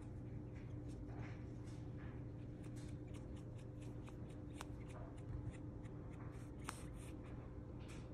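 Faint rustling and scattered small clicks of handling as a hand moves a newborn Shih Tzu puppy on a shaggy rug, over a steady low hum.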